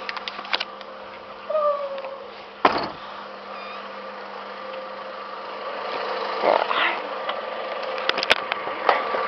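A 1996 Honda Civic's hood release and hood being worked: clicks, then a single thump almost three seconds in, over a steady hum.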